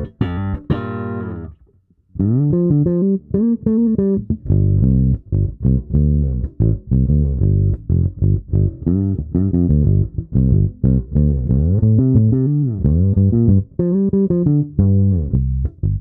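Vanzandt PBV-R2 Precision-style electric bass played fingerstyle. Notes with the tone knob at half ring out and stop about a second and a half in. After a short break comes a busy line of plucked notes, with a few slides, played with the tone knob turned fully down, sounding darker with little treble.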